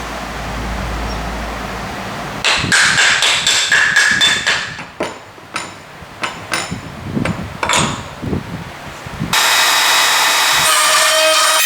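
A run of about a dozen irregular hammer strikes, some with a short metallic ring, on a woodworking hand plane or chisel. Near the end a power tool starts and runs steadily.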